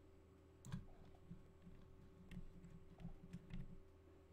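Faint computer mouse and keyboard clicks, about half a dozen scattered strokes, the loudest under a second in, over a low steady hum.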